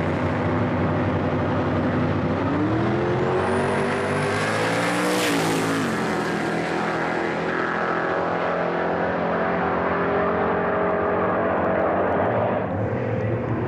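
HDT Commodore drag car and a second drag car launching down the strip at full throttle. Their engine notes climb in pitch, drop sharply at a gear change about five seconds in, then run on at high revs.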